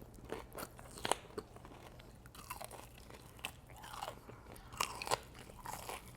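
A person eating crispy fried food close to the microphone: irregular crunching bites and chewing.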